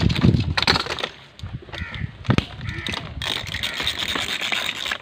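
A hand strapping tool clicking and rattling as it is worked to tighten a strap around a cardboard fruit carton, with sharp knocks against the box.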